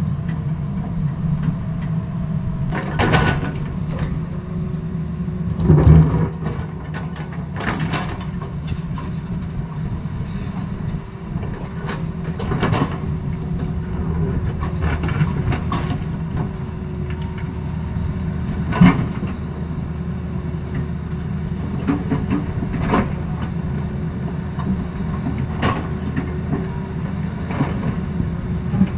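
Tata Hitachi hydraulic excavator's diesel engine running steadily while its bucket digs and shoves broken rock, with irregular knocks and clatter of stones and bucket on rock, the loudest about six seconds in and again a little past the middle.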